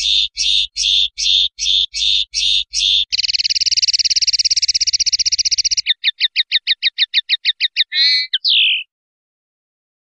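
Common linnet song: a series of repeated chirping notes about two or three a second, then a fast buzzy trill lasting nearly three seconds, then a quicker run of separate notes about eight a second and two closing chirps.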